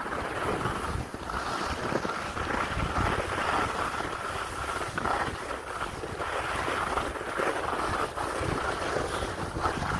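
Skis hissing and scraping over wind-packed snow on a downhill run, with wind buffeting the microphone and irregular low thumps.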